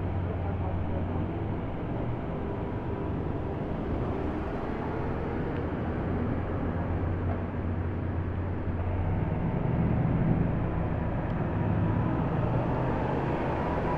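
Car engines running at low speed, a steady low hum that grows louder about nine to eleven seconds in.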